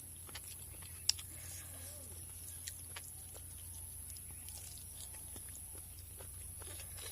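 A person chewing and eating a mouthful of rice and curry close to the microphone: many small scattered mouth clicks, with one sharper click about a second in. A steady low hum runs underneath.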